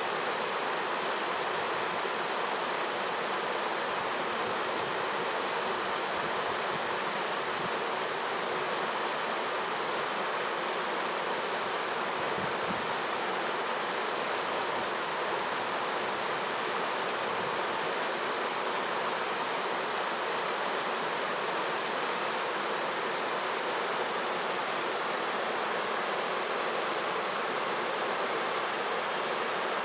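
Freezing mountain stream running with a steady, even rush of water.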